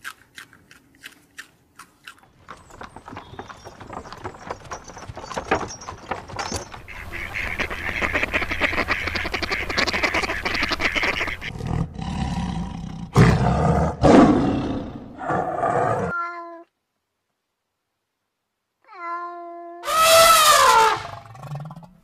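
A run of animal sounds. First comes a long stretch of rapid crackling noise. About twelve seconds in, a tiger growls in several loud, low calls. After a short silence near the end, an elephant trumpets in a loud call that falls in pitch.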